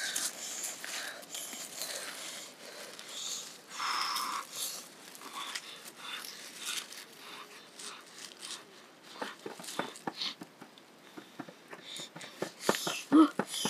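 Dry, charred corn husks rustling, crackling and tearing as they are stripped by hand from fire-roasted ears of corn, in irregular bursts that grow denser with sharp crackles near the end.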